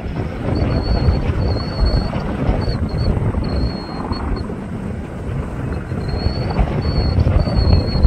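Boeing CH-47F Chinook tandem-rotor, twin-turboshaft helicopter running: a loud, deep pulsing rumble from rotors and engines, with a thin high whine that comes and goes.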